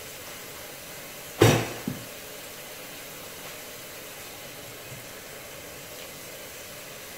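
Covered pan of creamy pasta simmering under a glass lid, giving a steady soft hiss. A single sharp knock comes about a second and a half in, with a smaller one just after.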